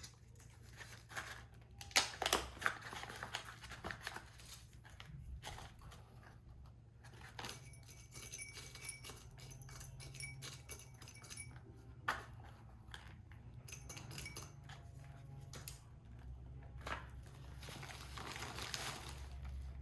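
Small handling noises: irregular rustling with light clicks and taps, sharpest about two seconds in and again near the middle, over a steady low hum.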